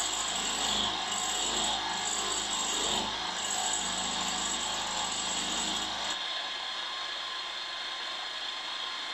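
Milling machine running with its end mill cutting a small square pocket into a metal model cylinder block, a steady machining noise. About six seconds in the sound thins and its low rumble drops away.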